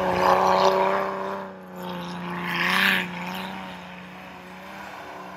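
Jeep engine revving up and easing off as the Jeep churns through deep snow, its tyres throwing snow. It is loudest in the first second and again at about three seconds, then fades as the Jeep moves away.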